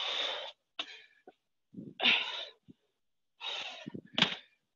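A woman's hard, noisy breaths out from exertion, in three separate bursts each cut off abruptly, with a short thump near the end.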